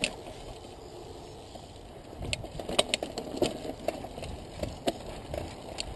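Mountain bike rolling over a loose-rock trail, the tyres crunching and the bike rattling. After a steadier first couple of seconds, irregular sharp clicks and knocks start about two seconds in as the bike bumps over rocks.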